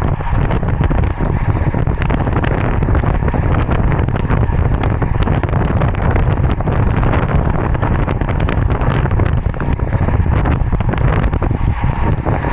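Loud, steady wind noise buffeting the microphone of a camera on a road bike riding at speed, mixed with the rumble of the bike's tyres on rough, cracked asphalt.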